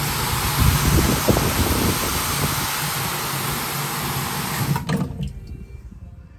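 Electric rotary floor scrubber running on a wet, foaming rug: a steady motor hum under a loud, wet scrubbing hiss as the brush churns the shampoo. It cuts off suddenly about five seconds in.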